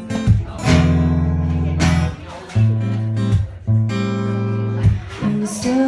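Acoustic guitar strumming chords, each struck about every second and a half and left to ring.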